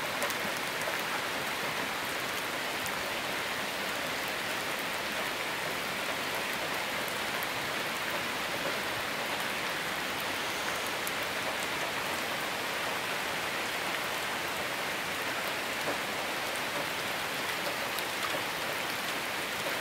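Steady rain falling on wet asphalt and foliage: an even hiss with scattered faint ticks of single drops.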